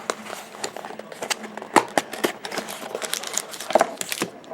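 Trading-card packaging crinkling and rustling as it is handled and opened: an irregular run of sharp crackles and clicks.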